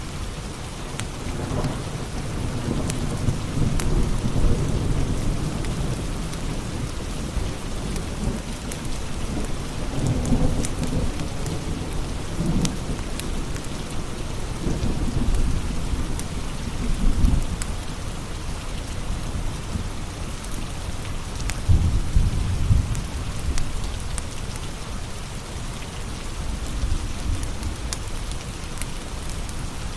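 Steady heavy rain hissing, with low thunder rumbling in several rolls that swell and fade, and scattered sharp crackles from a wood fire in a fireplace.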